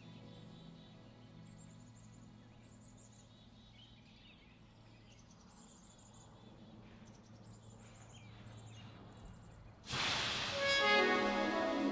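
Ambient electronic music: a soft low drone under faint, quick bird chirps from a nature field recording. About ten seconds in, a sudden loud rush of noise comes in and opens into layered sustained tones.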